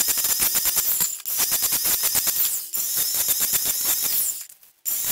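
Cordless angle grinder grinding the cutting edge of a steel mower blade in three short passes, with brief breaks about a second in and near three seconds, and a longer stop just before the end. Metal is being taken off the heavier side of the blade to balance it.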